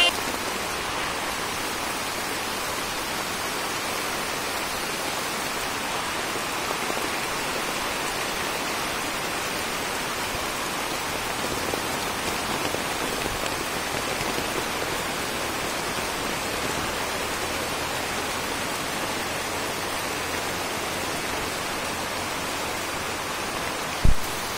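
Heavy rain falling steadily on dense jungle foliage, an even hiss with no let-up. A single sharp knock near the end.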